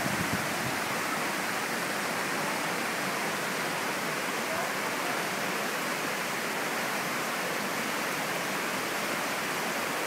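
Mountain stream rushing over rocks in small rapids: a steady rushing noise of flowing water.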